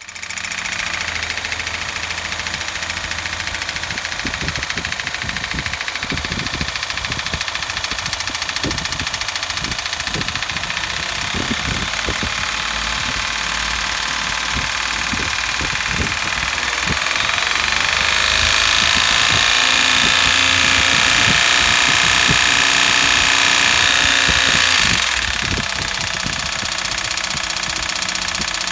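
Daihatsu Hijet Cargo's 660 cc three-cylinder KF-VE engine running with a knocking noise, the abnormal engine noise being diagnosed. The revs rise a little past the midpoint, are held higher for several seconds, then fall back to idle.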